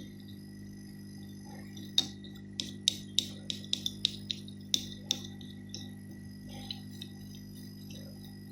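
A run of about ten short, sharp, light clicks and taps spread over a few seconds, over a steady electrical hum.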